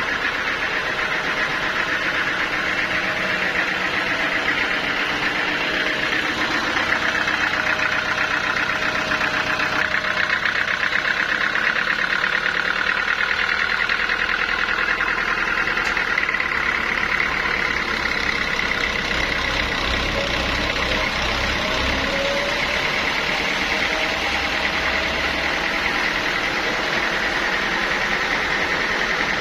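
Sawmill machinery running steadily with a continuous engine-like drone, growing somewhat heavier in the low end past the middle.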